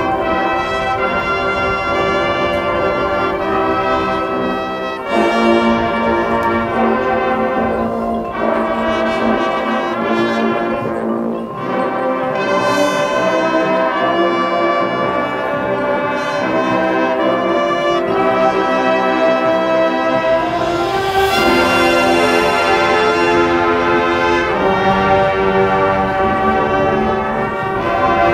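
High school marching band playing, led by its brass section of trumpets and trombones, sustained chords that swell to a full climax about two-thirds of the way through.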